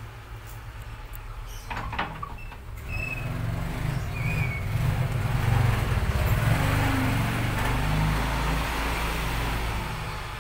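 A motor vehicle's engine rumbling past: it grows louder from about two seconds in, is loudest in the middle and fades toward the end.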